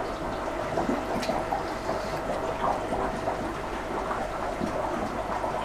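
Airlift return outlet running underwater: air-lifted water bubbling and gurgling steadily out of a PVC elbow into the tank, over a steady hum.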